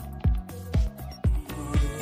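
Background music with a steady beat, about two low thumps a second under sustained tones.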